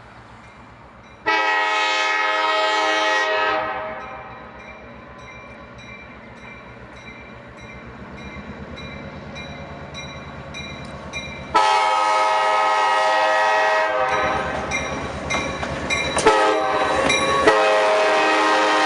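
Locomotive horn sounding a multi-note chord: a short blast of about two seconds, then a long held blast near the end. In between, the train's wheels click steadily over the rail joints as it rolls by, and a few sharp knocks come during the long blast.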